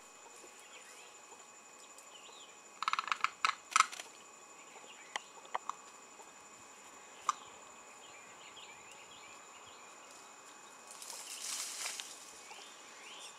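Wetland outdoor ambience: a steady high insect whine with short bird chirps scattered through. A rapid run of sharp clicks about three seconds in is the loudest sound, with a few single clicks after it and a brief hiss near the end.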